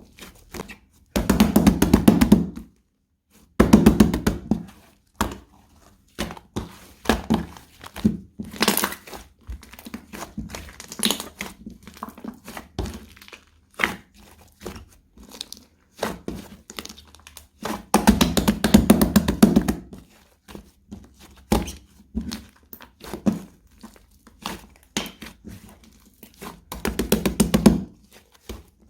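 Slime being squeezed and stretched by hand, with quick crackling and popping of trapped air bubbles. Four louder stretches of dense popping last about a second or two each, with lighter clicks between them.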